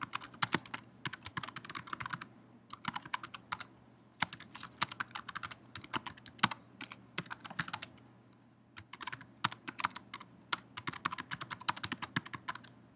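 Typing on a computer keyboard: quick runs of keystrokes with short pauses between them, the longest pause a little after the middle.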